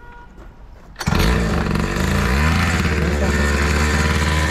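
49cc two-stroke pocket bike engine being pull-started: it catches about a second in, revs up and down briefly, then settles into a steady idle.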